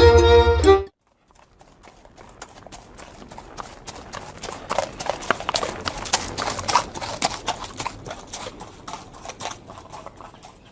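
Instrumental music stops abruptly about a second in. After it comes a dense, irregular clatter of hooves clopping, growing louder toward the middle and fading away near the end.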